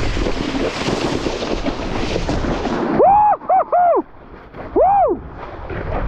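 Strong wind buffeting a GoPro microphone while kiteboarding at speed. About halfway through, the wind noise drops and four short, loud tones follow, each rising and then falling in pitch.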